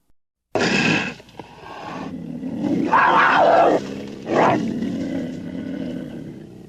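Cougar calling: after a brief silence, a sudden loud call about half a second in, then a run of rough calls. The loudest, about three seconds in, drops in pitch, and the calls fade off near the end.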